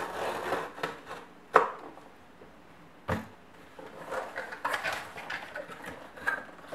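Scissors slitting the packing tape on a cardboard shipping box, with scraping and rustling of the cardboard and two sharp knocks as the box is handled; near the end the box flaps are pulled open.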